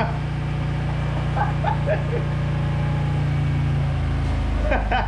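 VW Polo Mk2 GT four-cylinder petrol engine idling steadily, its note shifting lower about four seconds in.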